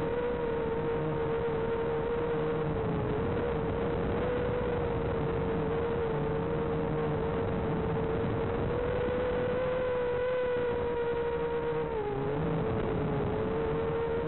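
Rekon 5 FPV quadcopter's motors and propellers whining steadily at a near-hover. The pitch wavers slightly and dips briefly a little before the end.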